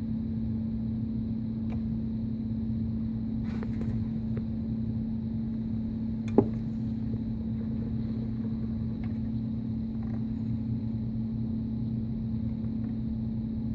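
A steady low hum with a single sharp click about six seconds in.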